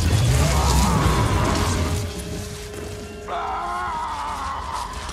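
Film sound design with music: a loud, noisy energy effect with a deep rumble as the glowing Power Stone is pressed to a man's head, easing off after about two seconds; a wavering tone comes in a little after three seconds.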